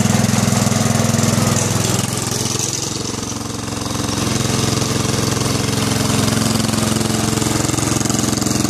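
Small engine of a red garden tractor running steadily at idle. Its note sags a couple of seconds in and picks back up about a second later.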